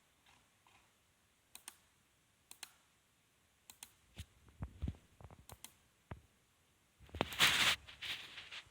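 Computer mouse buttons clicking, several times in quick pairs, with a few dull low thuds among them. About seven seconds in comes a louder stretch of rough noise lasting over a second.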